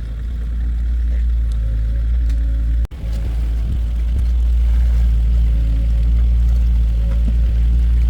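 Heavy diesel engine of construction machinery running steadily with a low drone. It cuts out for an instant about three seconds in, then carries on slightly louder.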